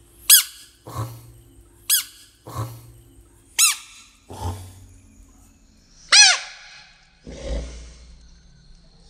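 Bullfrogs giving distress calls as they are prodded: four sharp squeaks that each fall steeply in pitch, each followed a moment later by a lower, rough croak.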